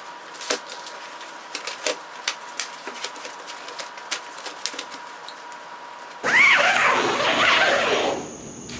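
Handling noise of a vinyl awning cover: a string of small clicks and rustles as the rolled awning is settled inside, then, about six seconds in, a loud rasp of about two seconds as the cover's long zipper is pulled shut.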